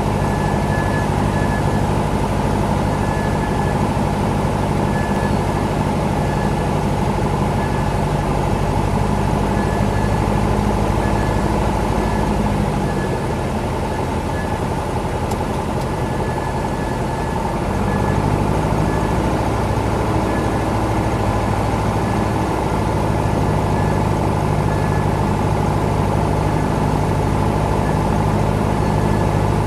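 Maule light aircraft's piston engine and propeller running steadily in the cabin. Power is eased back about thirteen seconds in and brought back up about five seconds later.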